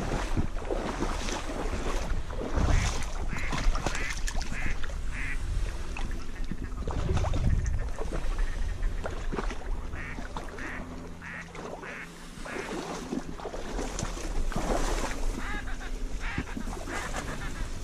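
Runs of short, evenly spaced duck quacks, several in a row, repeated a few times. Underneath is the sloshing and rustling of wading through marsh water and reeds.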